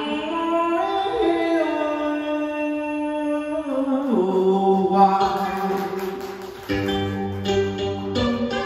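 A man singing Vietnamese ca cổ (cải lương) in long held notes that slide down between pitches, over plucked-string accompaniment of moon lute (đàn kìm) and guitar. About two-thirds of the way through the voice stops and the plucked strings carry on alone.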